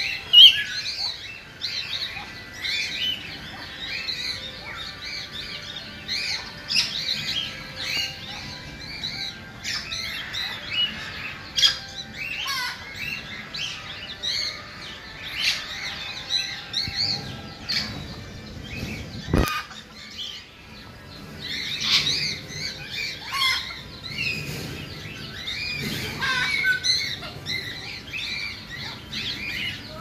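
A dense chorus of small birds chirping, many short calls overlapping without pause, with one sharp click about two-thirds of the way through.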